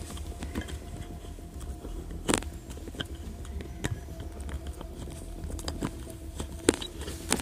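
Irregular crackling and snapping of dry leaves and twigs in forest undergrowth, with two sharper snaps, one about two seconds in and one near the end.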